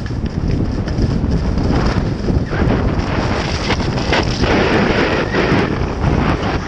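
Heavy wind rushing over the microphone at downhill skiing speed, with skis hissing and scraping over firm groomed snow, louder in the middle of the run.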